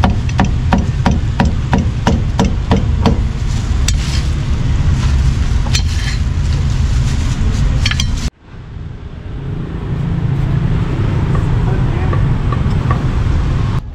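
Heavy cleaver chopping roast pork on a thick wooden chopping block: rapid, even strokes about four a second for the first three seconds, then a few lighter knocks and scrapes as the pieces are gathered up. About eight seconds in it gives way to a steady low rumble of street traffic.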